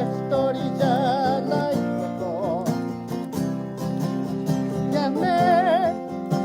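Acoustic guitar strummed in a steady rhythm, with a melody line held in long wavering notes over it, likely a voice.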